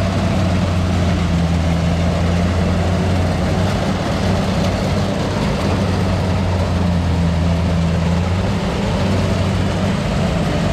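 Kubota tracked rice combine harvester's diesel engine running steadily under load while it cuts rice, a constant low engine hum.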